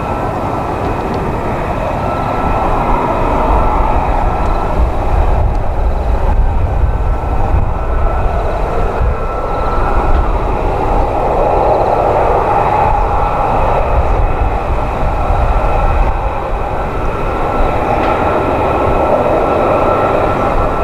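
Jet aircraft engine noise: a loud, steady rumble with a faint high whine, swelling slightly after the first few seconds.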